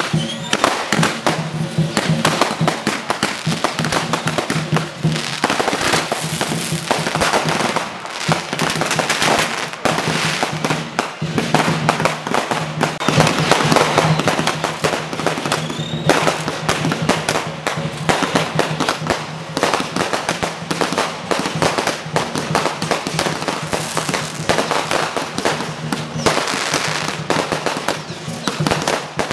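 Fireworks and firecrackers going off in a dense, unbroken run of rapid bangs and crackles.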